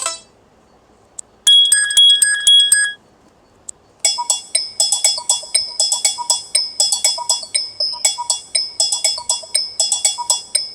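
Built-in ringtones of an Asus ZenFone 2 Laser playing in turn: a short bell-like chime of a few quick repeated strikes, then, about four seconds in, a fast, bright chiming melody of rapid struck notes.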